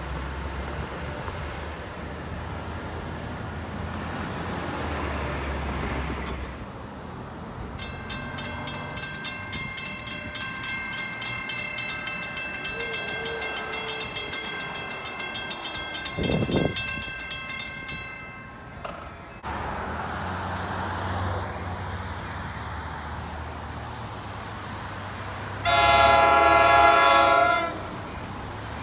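Low traffic rumble at a grade crossing, then a crossing warning bell ringing steadily for about ten seconds. Near the end a NJ Transit commuter train sounds one loud horn blast of about two seconds as it approaches.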